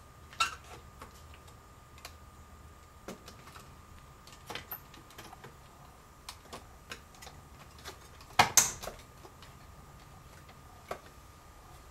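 Scattered light clicks and taps of small parts being handled as gauges are fitted back into a 1973–87 Chevy truck instrument cluster, with a louder clatter about eight and a half seconds in.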